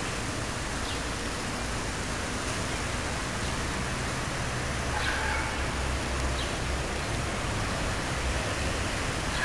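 Low, steady diesel rumble of a CAF diesel-hydraulic multiple unit pulling away and receding, under an even broad hiss.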